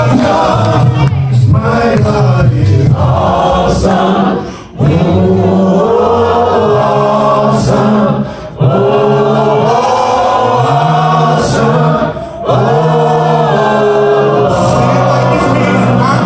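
A small group of men singing gospel in close harmony, unaccompanied, through hand microphones and a PA: long held chords, with short breaks between phrases about every four seconds.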